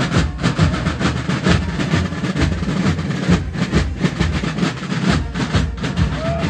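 A packed carnival street crowd making a dense, rumbling din of many voices and jostling bodies, with the band's music coming in near the end.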